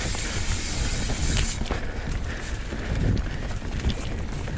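Downhill mountain bike ridden fast down a dirt forest trail: a steady rumble of knobby tyres over dirt and leaves, with scattered knocks and rattles from the bike over bumps.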